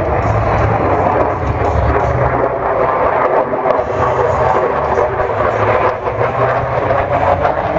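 F-16 fighter jet's single engine heard from the ground as the jet flies overhead: a loud, steady rumbling jet noise with no breaks.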